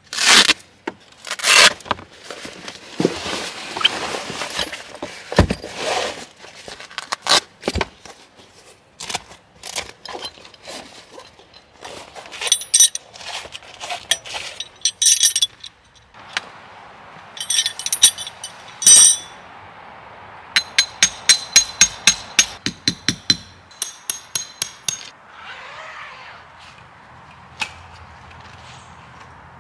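Velcro straps ripped open on a fabric roll-up stake bag and the canvas rustling as it unrolls, then metal tent stakes clinking and scraping as they are pulled from their elastic loops, with a quick run of sharp metallic clicks past the middle.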